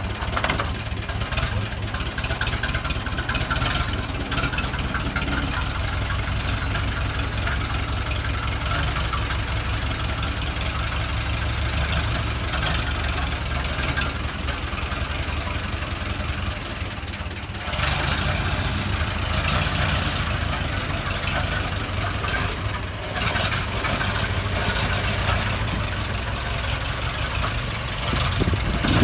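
The engine of a 1927 Indiana dump truck running steadily as the truck drives slowly, with a brief dip in the sound about two-thirds of the way through.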